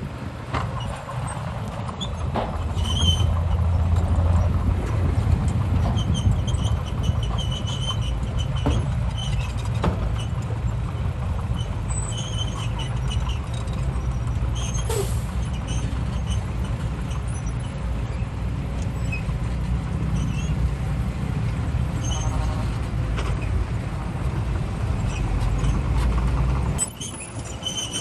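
Heavy diesel machinery running steadily under load, a low engine drone with occasional metallic clanks and short high-pitched squeaks. The level drops suddenly near the end.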